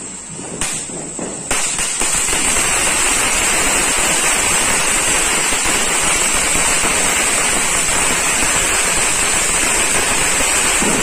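Ground firework fountains spraying sparks: a few sharp pops in the first second and a half, then a loud, unbroken hiss and crackle that holds level.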